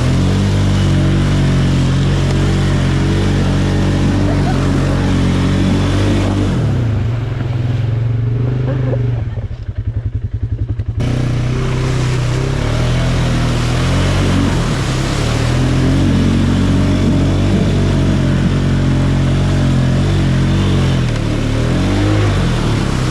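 ATV engine running steadily at a fairly constant speed. About seven seconds in the sound turns dull for a few seconds and the engine's separate firing beats come through, then the full running sound returns.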